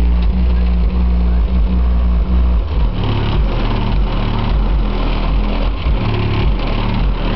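Rap music with heavy, deep bass played loud through two Rockford Fosgate Punch 15-inch subwoofers driven by a 2000-watt Power Acoustik amplifier in a car trunk, heard from outside the car. The bass notes step in a repeating pattern that shifts about two and a half seconds in.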